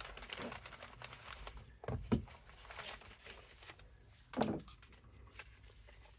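Packaging crinkling and rustling as a parcel is handled, with scattered light clicks and a couple of soft knocks, one about two seconds in and one about four and a half seconds in.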